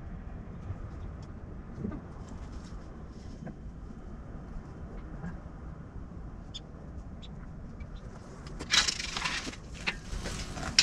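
Quiet outdoor background with a steady low rumble and a few faint bird chirps. About nine seconds in, a run of rustling and clattering noises starts and grows louder.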